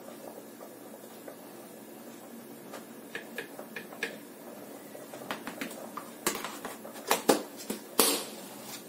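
Metal teaspoon clinking against the plastic blender jar as salt is tipped in. This is followed by louder sharp clicks and knocks as the plastic salt tub is handled and its lid snapped back on.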